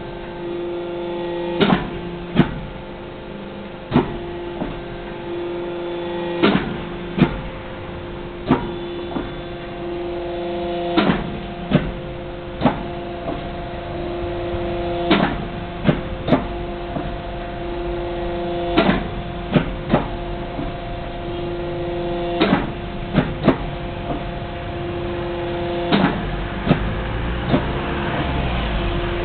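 Tube shrinking machine, which shrinks tube ends before drawing, running with a pitched mechanical hum that grows stronger and weaker several times. Sharp knocks come every second or two at uneven spacing.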